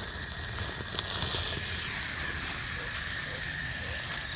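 Metal tongs clinking and scraping in campfire coals as they grip a foil-wrapped fish, with a sharp click about a second in. A steady high-pitched cricket trill runs under it.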